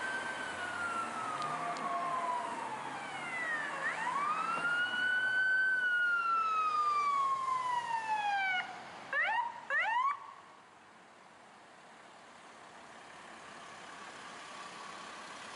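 Electronic siren of a Los Angeles Fire Department emergency vehicle running code 3. It wails slowly down, up and down again, then gives a few quick rising whoops about nine to ten seconds in and cuts off. Steady traffic and engine noise remains after it.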